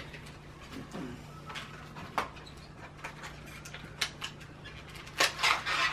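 Small packaged items being handled: a few sharp clicks and taps, then louder rustling of packaging near the end, over a steady low hum.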